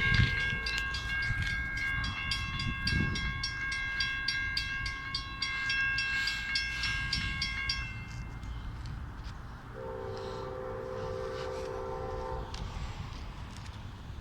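Passenger train with three locomotives passing a grade crossing, its rumble strongest at the start and again about three seconds in. Crossing bells ring with rapid, even strikes over a steady high ringing tone that stops about eight seconds in. A train horn then sounds one chord for about three seconds, starting near ten seconds in.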